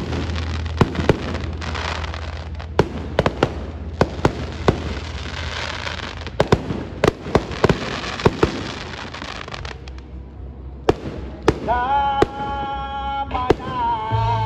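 Aerial fireworks bursting in quick succession: sharp bangs among a hissing crackle, thinning out after about ten seconds. Music with a steady bass plays underneath, and a melody comes in near the end.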